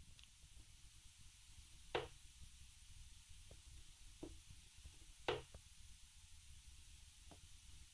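Fingertips tapping the glass of a touchscreen monitor: two sharper taps, about two and five seconds in, and a few fainter ones, over a faint low hum.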